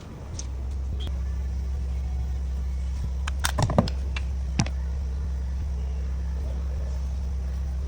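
Mercedes Actros truck's diesel engine idling steadily, with a few sharp clicks about halfway through.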